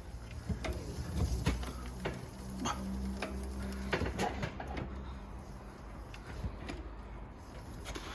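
Scattered clicks and knocks of an e-bike being lifted and handled while a new chain and quick link are fitted, over a low steady hum.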